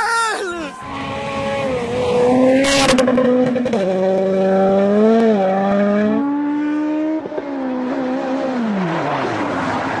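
Rally car engines at full throttle, the pitch climbing and dropping back at each gear change, with a short sharp crack just under three seconds in. Near the end the engine note falls away as the car slows.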